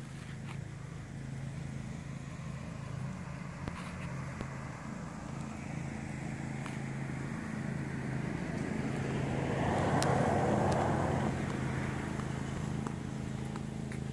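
Car driving slowly: a steady low engine hum with road and tyre noise that swells to its loudest about ten seconds in and then eases off.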